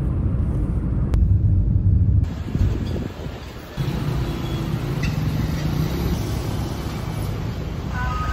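Low rumble of a moving vehicle heard from inside. About two seconds in it gives way to steadier road-traffic noise with a low engine hum.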